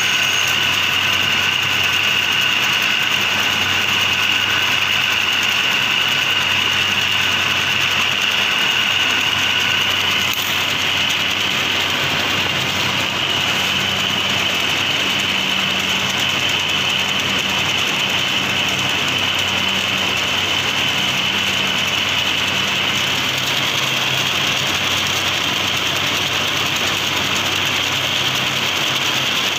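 Steady hum of running paper straw machinery with a constant high-pitched whine; a second, lower whine stops about ten seconds in.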